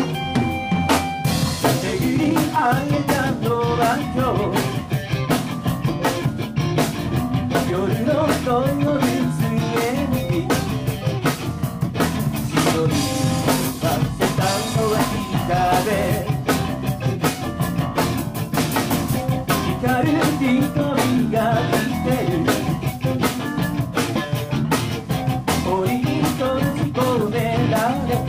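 Live rock band playing a song: drum kit, electric guitar, bass and keyboards.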